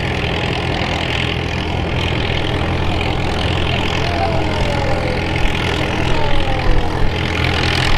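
Farmall tractor engine running steadily under load while pulling a weight-transfer sled, a low even drone that grows slightly louder toward the end.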